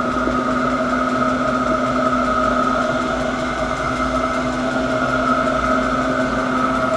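Chinese diesel parking heater running in its warm-up: the blower fan holds a steady whine over a constant hum.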